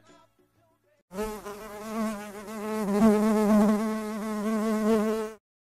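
Bee buzzing sound effect: a low, steady buzz with a slightly wavering pitch that starts about a second in, swells and cuts off suddenly near the end.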